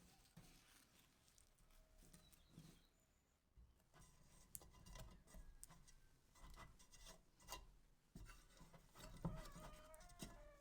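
Faint scattered clicks, taps and rubbing, with a faint drawn-out animal call about nine seconds in.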